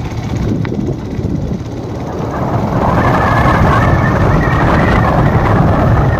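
Motorcycle on the move, heard from the bike: wind rushing over the microphone with engine and road noise, growing louder about three seconds in.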